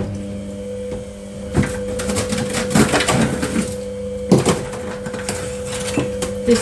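Ice being knocked and scraped loose inside a freezer compartment being defrosted: several sharp knocks over a steady hum.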